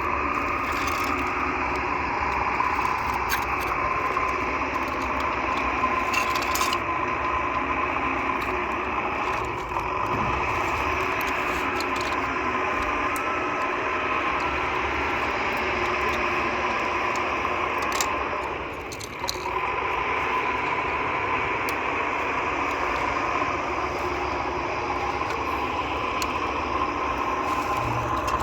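A toy vehicle's small electric motor whining steadily, with a brief drop in level about 19 seconds in and a few light clicks.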